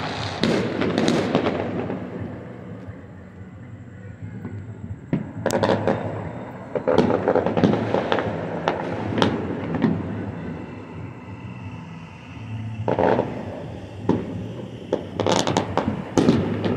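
New Year's fireworks going off across the city: sharp bangs and crackling bursts in clusters. There is a lull between about two and five seconds in, a busy run of reports around seven to nine seconds, a lone bang near thirteen seconds, and a quick string of bangs near the end.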